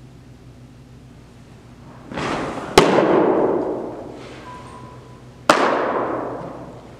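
A pitched baseball popping into a catcher's mitt: a rush of noise, then one very loud, sharp crack that echoes and dies away slowly in the indoor facility. A second sharp smack with the same long echo comes about three seconds later.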